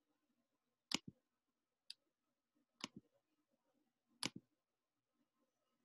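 Computer mouse clicking four times, about once a second, most clicks a quick double tick, with near silence between them.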